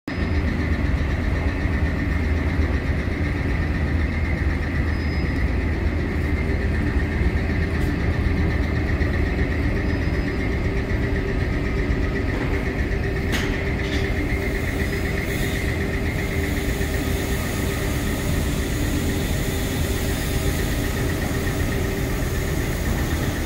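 Steady machinery hum of running ventilation equipment: a low rumble with a constant whine over it. A brief click about thirteen seconds in.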